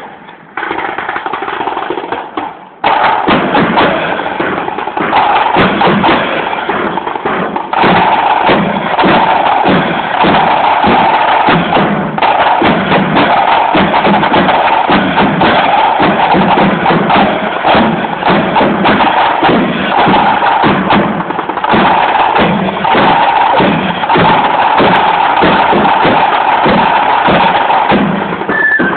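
Marching band's drum corps playing side drums with cymbals, a fast, continuous marching rhythm that comes in loud about three seconds in.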